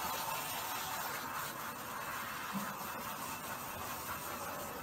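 Water hissing steadily from a handheld shower sprayer onto a cat's head and back. It cuts off suddenly just after the end.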